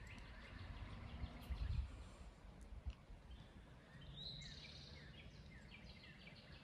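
Faint outdoor ambience of small birds chirping in the trees, with one downward-sliding call about four seconds in, over a low wind rumble on the microphone.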